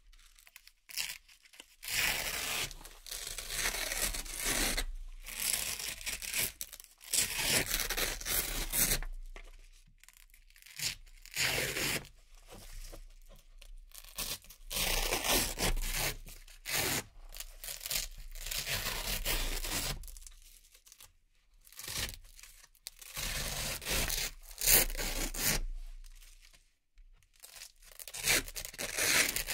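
Hook-and-loop (Velcro) circle patches being peeled off a hook-and-loop board one after another. Each peel makes a crisp, crunchy ripping sound lasting about a second or two, with short pauses between them.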